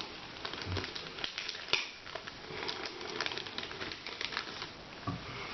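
A small paper booklet being handled and leafed open: light rustling with scattered small clicks and taps.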